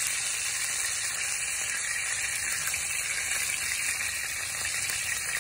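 Hot oil sizzling steadily as chapli kebab patties shallow-fry in a pan.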